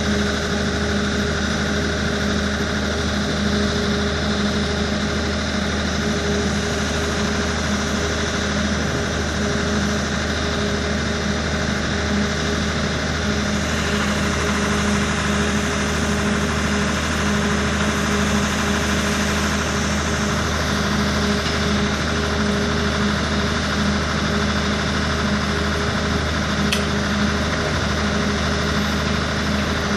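Engine of a truck-mounted flash-butt rail welding machine running steadily, a constant even hum. Two or three faint sharp clicks near the end.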